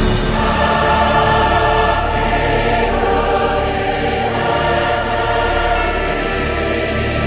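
Soundtrack music: a choir singing long held chords that shift every couple of seconds over a steady low accompaniment.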